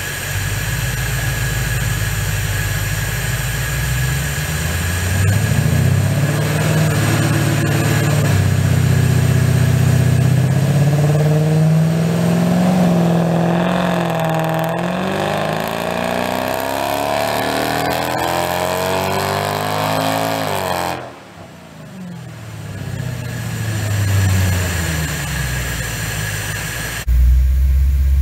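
2007 Jaguar XK's 4.2-litre V8 through a Magnaflow exhaust, running on a hub dyno: it runs steadily at first, then climbs in revs for about fifteen seconds in a full-throttle dyno pull. The throttle is then closed abruptly, and the revs fall away.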